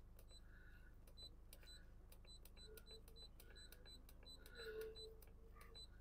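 Near silence, with a faint high ticking about three times a second.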